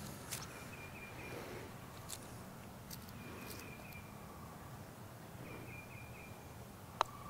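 A single sharp click of a putter striking a golf ball near the end. Before it, faint bird song, a short stuttering high phrase repeated every couple of seconds, over a quiet outdoor background.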